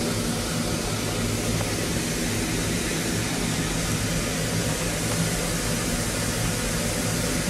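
Steam locomotive standing with steam venting: a steady hiss with a low, even hum beneath it.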